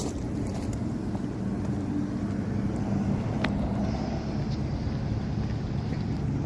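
Steady low outdoor rumble with a faint hum, like distant traffic, and a faint tick about three and a half seconds in.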